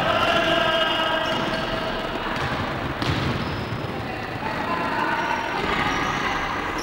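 Basketball gym game noise: voices of players and spectators calling out over the hall's general din, with one thud about three seconds in.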